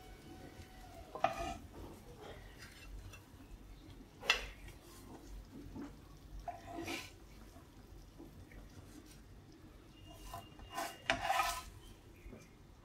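Plastic spatula scraping and knocking against a nonstick frying pan as fried sardines are lifted out onto a plate: a few separate scrapes and knocks, the sharpest about four seconds in and a quick cluster near the end.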